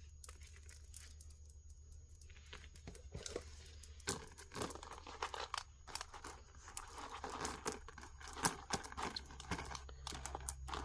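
Jewelry and its packaging being handled: crinkling and rustling with small clicks of beads and metal, sparse at first and busier from about four seconds in.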